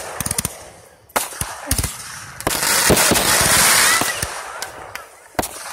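Aerial fireworks going off: a run of sharp bangs from bursting shells, with a dense hissing crackle of sparks from about two and a half to four and a half seconds in.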